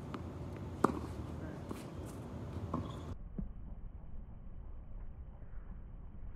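A tennis ball struck sharply once about a second in, with a softer ball knock near three seconds, over faint outdoor background.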